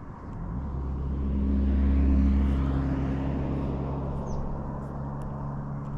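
An engine passing by: a low hum with a steady pitch that swells to its loudest about two seconds in, then slowly fades.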